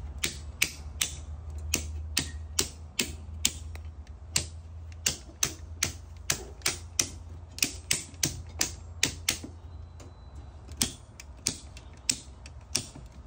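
Circuit breakers in a GE PowerMark Gold load center being switched off one after another to cut power to the branch circuits: a long run of sharp snapping clicks, about three a second and unevenly spaced. A low steady hum runs underneath.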